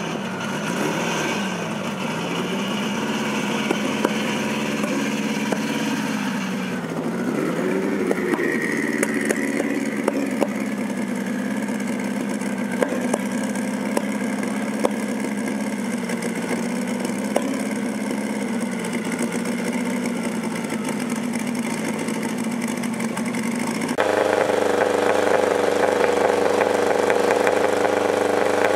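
Renault 5 Maxi Turbo's turbocharged four-cylinder idling, its pitch wavering briefly a couple of times in the first eight seconds. It cuts off suddenly about four-fifths of the way in, and a Fiat 131 Abarth's four-cylinder idles in its place, louder and steadier.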